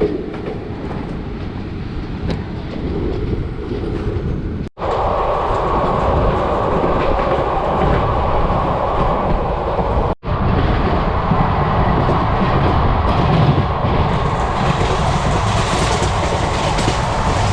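Circar Express passenger coach running on the rails, heard from on board: a steady rumble and rattle of wheels on track. It breaks off in two sudden short gaps, about five and ten seconds in.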